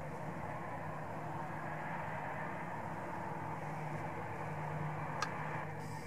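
Jet engines of a taxiing four-engine Airbus A340 at idle thrust, heard from a distance as a steady rushing noise over a low hum, with one sharp click about five seconds in.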